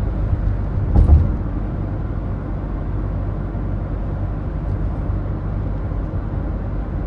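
Ford Focus diesel heard from inside the cabin while driving on a straight road: a steady low drone of engine and road noise. There is a brief thump about a second in.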